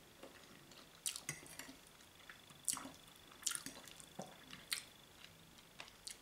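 A person chewing food with the mouth closed: wet mouth clicks and smacks, about half a dozen sharp ones at irregular intervals.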